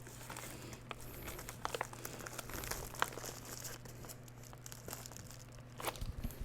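Plastic and paper packaging being handled: faint crinkling and rustling with scattered small clicks.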